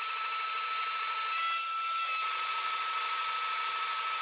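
CNC machine cutting metal: a steady high-pitched whine over a hiss, its tone changing about a second and a half in.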